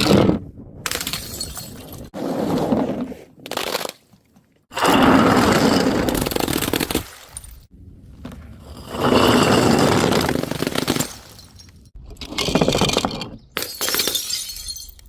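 Glass bottles smashing, one after another, about five or six separate breaks cut back to back. Each is a crash with scattering shards, divided from the next by abrupt gaps.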